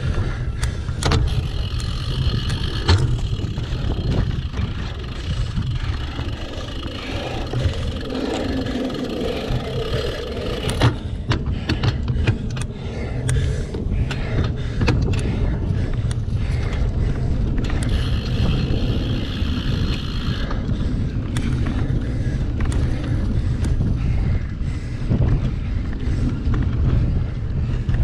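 Wind buffeting a GoPro mounted on a single-speed cyclocross bike as it is ridden hard over rough ground. The rush of tyres is mixed with frequent clicks and knocks as the bike rattles over bumps, thickest around the middle of the stretch.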